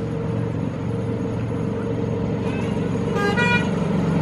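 A 7¼-inch gauge miniature railway locomotive's engine running steadily as it approaches, with one short horn toot about three seconds in.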